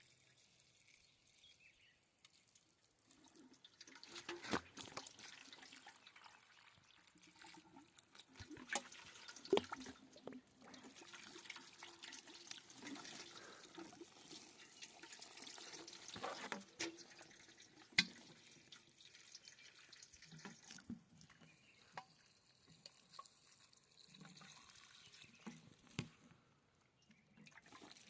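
Faint water running and splashing as plants are watered, with scattered sharp drips and clicks; it starts a few seconds in and fades out near the end.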